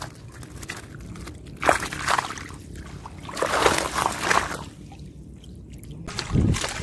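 Water sloshing and streaming off a mesh fish keep net as it is lifted out of the water, in surges about a second and a half in and again from about three to four and a half seconds. A short low thump near the end.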